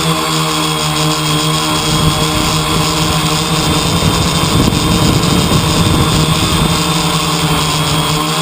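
A steady mechanical hum, like an engine running at constant speed, with low wind rumble on the microphone that is strongest around the middle.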